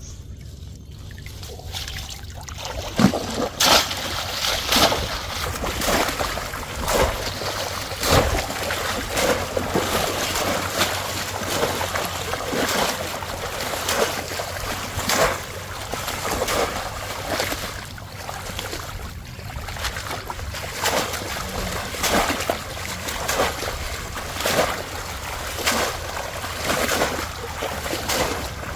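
Shallow water splashing again and again, irregular sudden splashes about once a second over a steady trickle, as a bamboo polo fish trap is worked in the water.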